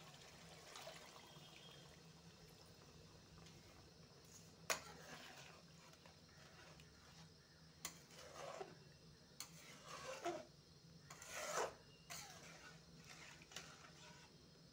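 Water poured from a bowl into a kadai of chicken curry, then a spatula stirring and scraping the aluminium pan, with a few sharp knocks of the spatula against the pan. Quiet throughout.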